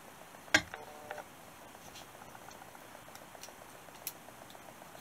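A steel engineer's straight edge being set down on a VW cylinder head, giving one sharp metallic click about half a second in, followed by a few faint light ticks as a feeler gauge is worked under the edge to check the head for warpage.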